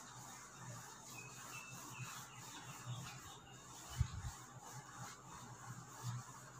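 Faint, repeated rubbing of a duster wiped across a whiteboard, with a short low thump about four seconds in.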